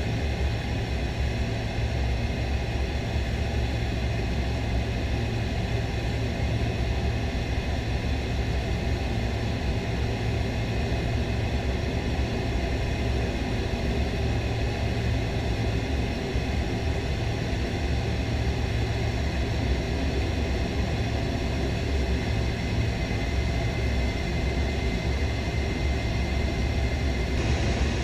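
Steady rumble of an A-10 Thunderbolt II in flight, heard from inside the cockpit: the noise of its twin turbofan engines and the airflow over the canopy, unchanging throughout.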